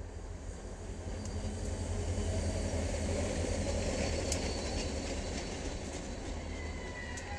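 Two diesel locomotives running light past at close range: a steady engine rumble that swells as they go by, with a few sharp clicks and a brief high squeal near the end.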